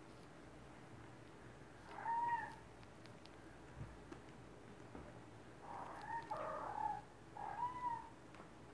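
Kittens meowing: one short meow about two seconds in, then a quick run of three or four more near the end.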